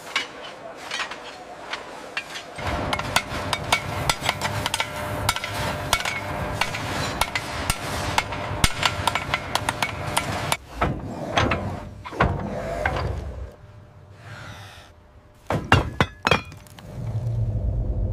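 Many hand hammers striking iron in a busy metal workshop, with dense, irregular metallic clanks and clinks. The strikes thin out after about thirteen seconds, a few sharp last blows come about three seconds later, and a low rumble closes it.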